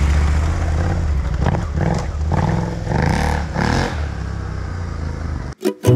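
KTM 790 Adventure R parallel-twin engine running steadily at low revs while the bike is ridden over a rough, rocky dirt road, with several brief noisy surges. The sound cuts off suddenly near the end.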